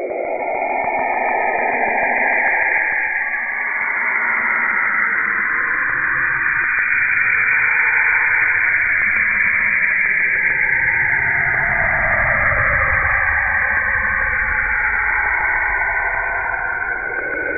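Saturn's radio emissions converted to sound: an eerie hissing, whistling wash with bands that slowly glide up and down in pitch, and a low rumble that swells through the middle and fades again.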